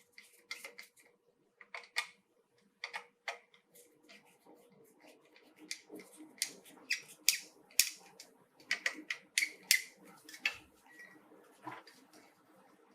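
Irregular clicks and knocks of a smart wall light switch being handled and worked into its wall box, at times several in quick succession.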